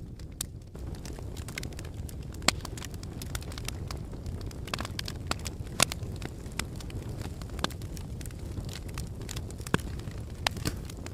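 Lava flow crackling: a steady low rumble with sharp cracks and clinks at irregular intervals, the loudest about two and a half, six and ten seconds in.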